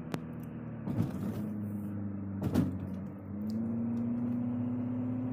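Car engine and road noise heard from inside the cabin while driving, the engine note rising steadily from about three seconds in as the car picks up speed. Two faint knocks in the first half.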